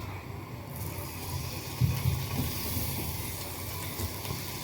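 Paneer cubes going into hot ghee and spices in a pan and starting to sizzle; the hiss sets in suddenly just under a second in and keeps going, with a couple of soft knocks in the pan about two seconds in.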